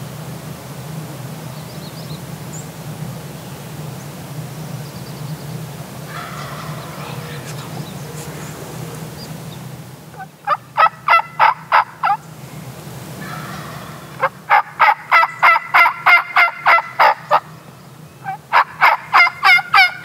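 Wild turkey tom gobbling loudly in three bouts of rapid rattling notes, about ten, fourteen and eighteen seconds in. The gobbler is coming in closer.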